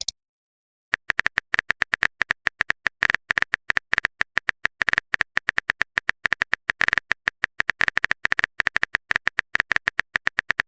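Phone-keyboard typing sound effect: a quick, uneven run of light clicks, several a second, starting about a second in.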